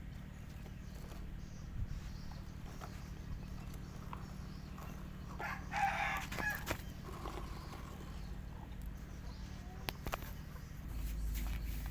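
Steady low rumble of an idling diesel engine, with a brief animal call about six seconds in.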